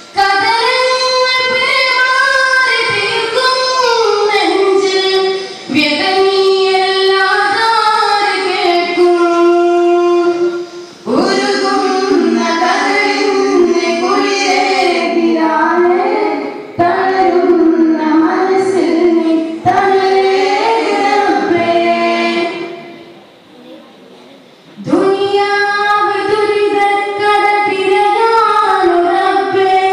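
Boys' voices singing a daff muttu devotional song together, with daff frame drums beaten along. The singing breaks off briefly a few times, longest about two-thirds of the way through, and starts again.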